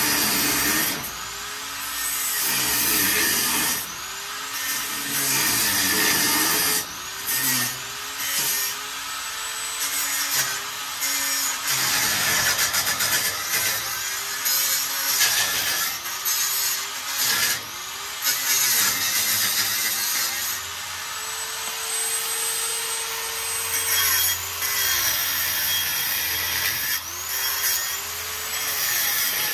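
Mains-powered electric power tool working in repeated passes, its motor tone sagging under load and picking up again every second or two, with a loud hiss over it. About two-thirds of the way in it holds one longer steady run before dropping off.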